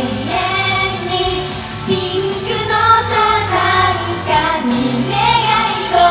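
Female J-pop idol group singing live over a pop backing track, with sung melody lines and a steady bass underneath.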